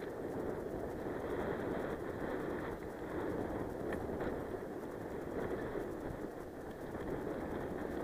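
Mountain bike rolling over a dirt and gravel trail: a steady noise of tyres on the ground and wind on the bike-mounted camera's microphone.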